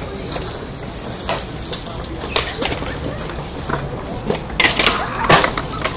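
Skateboard wheels rolling on concrete with scattered clacks and slaps of boards landing and hitting ledges, the sharpest knocks a little before the end, over voices talking in the background.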